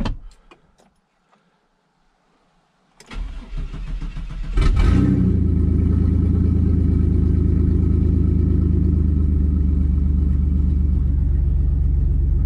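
Straight-piped 1996 GMC Sonoma engine with no catalytic converters being started: the starter cranks about three seconds in, the engine catches a second and a half later with a brief rev, then settles into a loud, steady idle, heard from the cab with the windows down.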